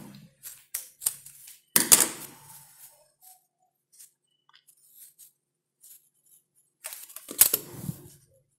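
Handling noises from crochet work: scattered light clicks and rustles from the hook and yarn as a finished motif is fastened off and turned in the hands. There are two louder bursts of handling, one about two seconds in and one near the end.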